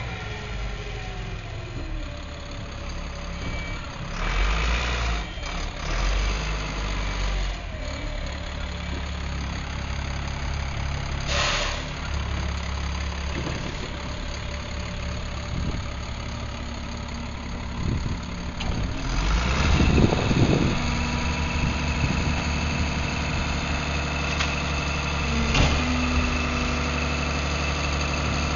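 Diesel engine of a Crane Carrier Company integrated rear loader garbage truck running at idle and low speed, with a short hiss about a third of the way in and a louder surge in engine sound about two-thirds of the way in.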